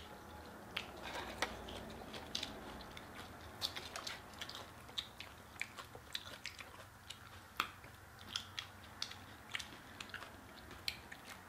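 Eating sounds: chewing on chicken wings and tortilla-chip nachos, with many short sharp crunches and mouth clicks at irregular intervals.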